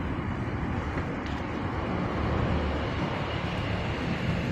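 Steady outdoor ambient noise, a low rumble under a hiss, with a faint click about a second in.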